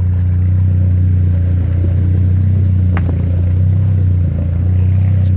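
Saab 9-3's engine running steadily with a low, even hum, and a single sharp click about three seconds in.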